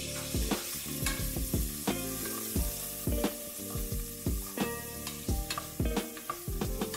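A wooden spatula stirring sliced mushrooms, garlic and onions frying in butter and olive oil in a pot, with a steady sizzle. The spatula knocks and scrapes against the pot over and over, at an uneven pace.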